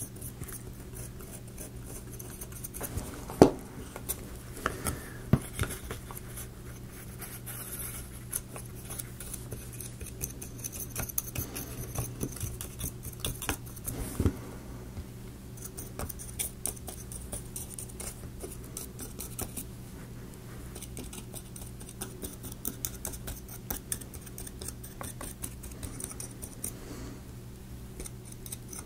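Small applicator dabbing grease onto the teeth of a laser-cut wooden gear: light, irregular scratching and clicking as it catches on the teeth. A sharp wooden tap comes about three and a half seconds in, and another near fourteen seconds.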